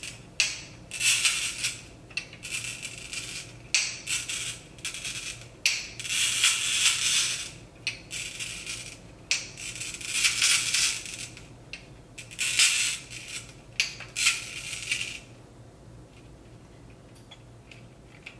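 Kinkajou bottle cutter's carbide cutting wheel scoring a line around a glass wine bottle as the bottle is turned by hand: about a dozen scratchy hissing strokes, each a second or so long with short gaps between them, stopping about three seconds before the end.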